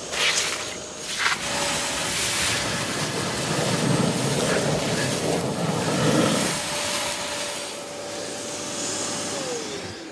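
Kärcher WD 3.200 wet and dry vacuum running with a steady whine while it sucks up sludge, which gets louder and rougher for a few seconds in the middle. Near the end the motor's whine falls in pitch as it winds down.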